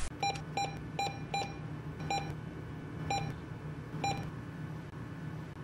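Seven short electronic beeps at one pitch: four in quick succession, then three more about a second apart. A low, steady hum runs underneath.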